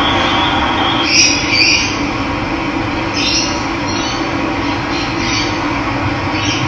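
Running water rushing steadily, with a bird giving short calls several times over it.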